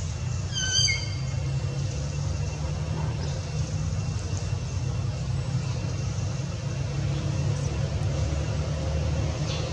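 Steady low outdoor rumble, with one brief high-pitched call about half a second in.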